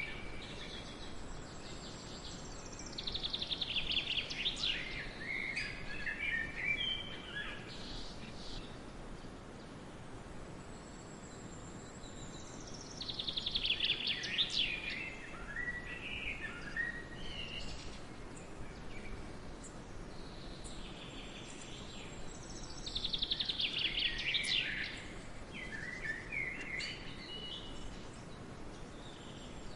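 A songbird singing the same phrase three times, about ten seconds apart: a fast run of high notes dropping into a few lower chirps. A steady hiss of forest background lies underneath.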